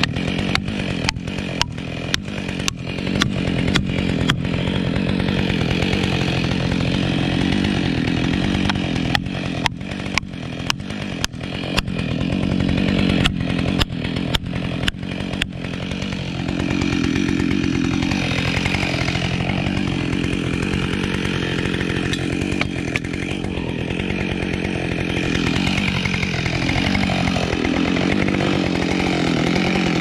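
Chainsaw running hard, cutting wood, with sharp clicks coming thick and fast through the first half. Later its pitch sags and recovers a few times.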